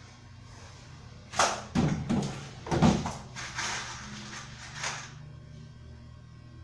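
A handful of irregular knocks and thuds, the loudest three or four close together about a second and a half in, then lighter ones: workpieces and tools being handled and set down on a workbench.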